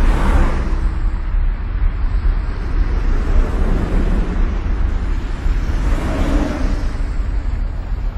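A deep, continuous rumble with rushing swells, one at the start and another about six seconds in.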